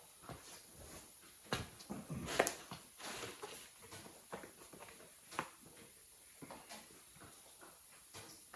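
Scattered light knocks and clicks of steel parts and tools being handled, with a sharper metallic knock about two and a half seconds in.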